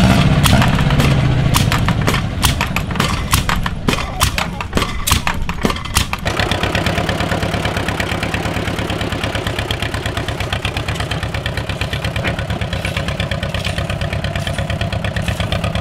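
Engine of a small Hüttenwerk Michelstadt crawler bulldozer running with a steady fast beat as it drives. The first few seconds hold irregular clattering knocks.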